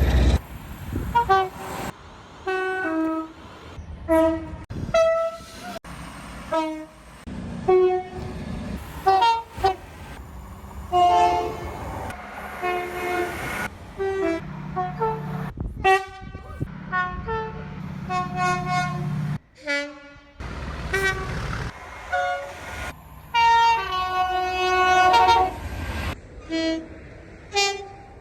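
British train horns sounding one after another, many short blasts, several of them two-tone calls that step between a higher and a lower note. The sound cuts abruptly from one clip to the next, with train running noise beneath some of them.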